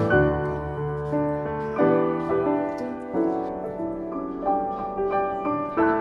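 Background music: a solo piano cover of a K-pop song, with new notes and chords struck every second or so.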